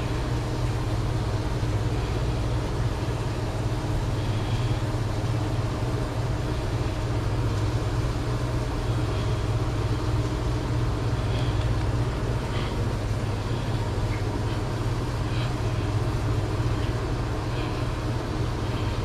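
A steady low mechanical drone, even throughout, with faint light clicks and taps scattered over it.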